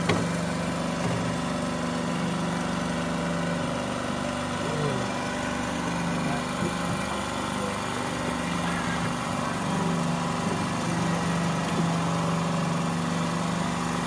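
An engine aboard a fishing boat running steadily: a continuous hum at an even pitch and level.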